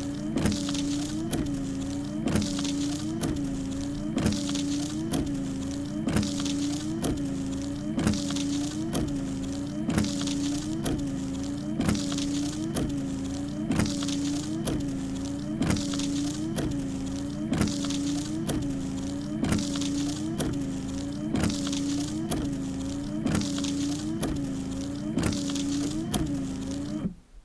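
Truck windshield wipers running at slow speed: a steady wiper-motor hum that dips with a click about every 0.7 s, and the blades swishing across the glass every couple of seconds. The sound cuts off abruptly near the end.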